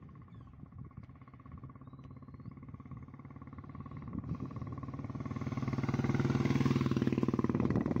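2002 Royal Enfield's single-cylinder engine running as the motorcycle approaches, its even beat growing steadily louder and loudest near the end.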